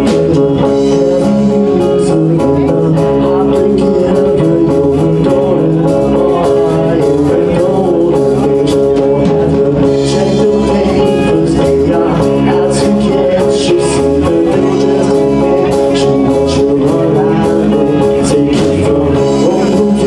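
Live rock band playing loud: electric guitar, electric bass, a Tama drum kit with cymbals, and a Roland RD-300 stage piano.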